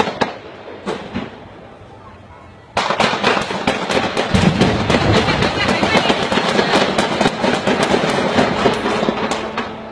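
Rapid, sustained gunfire, several shots a second. It thins out and drops to a lower level for about two seconds, then starts again suddenly and loudly about three seconds in and keeps going almost to the end.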